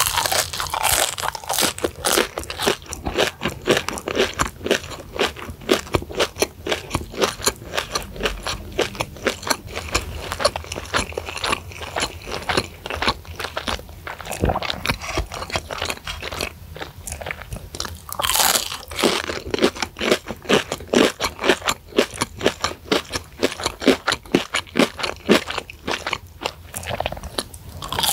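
Crunching and chewing of deep-fried breaded chicken sticks (Kanzler crispy chicken sticks dusted with chili flakes), a rapid, steady run of crisp crunches. Louder fresh bites come at the start, about two-thirds of the way through, and again at the end.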